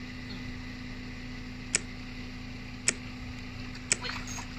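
Three sharp clicks about a second apart, over a faint steady hum.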